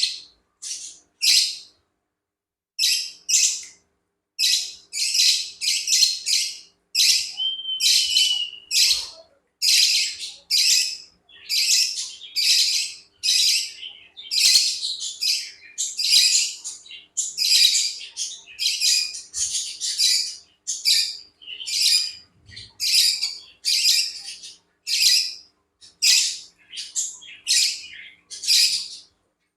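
Pet birds chirping in quick, repeated short calls, one or two a second, over a faint steady hum.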